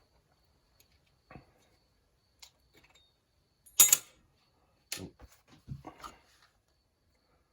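Small metal parts and hand tools handled on a workbench while the exhaust deflector plate is fitted back onto a Stihl 017 chainsaw muffler: scattered light clicks and knocks, with one sharp clack near the middle.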